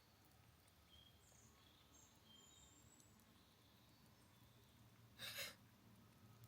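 Near-silent forest ambience with a few faint, high bird chirps, and one short soft noisy burst, like a breath or rustle, about five seconds in.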